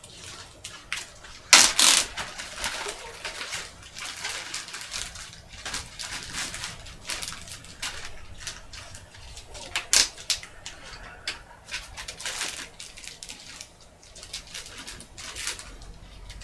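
Handling noises as a board game's parts and packaging are gone through: irregular rustling and clicks, with a sharper clatter about a second and a half in and another near ten seconds.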